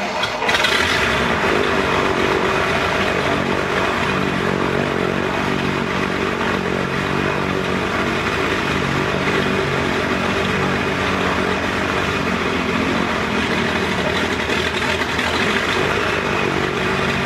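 Verner 7U seven-cylinder radial aircraft engine running steadily with its propeller turning, on its first run.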